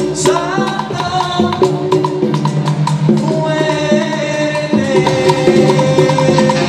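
Salsa music, with held melody notes over sharp percussion strokes keeping a steady beat.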